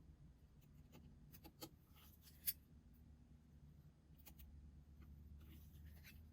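Faint scattered clicks and light scraping from small tools and phone parts being handled during a phone repair, with the sharpest click about two and a half seconds in, over a low steady hum.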